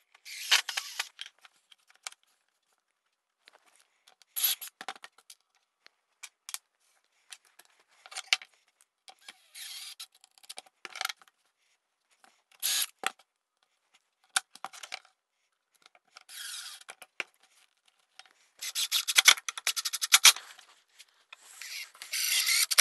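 Metal hinges, screws and wood pieces being handled on a plywood workbench: scattered clicks, scrapes and light metallic rattles in short bursts with gaps between, busiest near the end.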